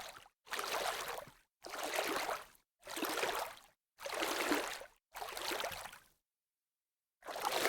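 A run of short, noisy foley swishes, each under a second long, about one a second, with dead silence between them and a longer gap about six seconds in.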